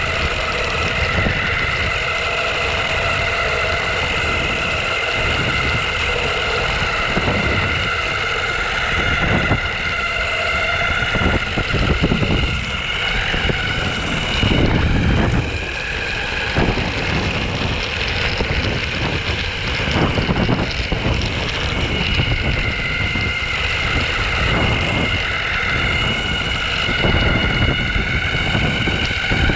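Onsra Black Carve belt-drive electric skateboard in motion: the motors and belts whine at a steady pitch that rises a little near the end, over the rumble of its rubber wheels rolling and wind buffeting the microphone.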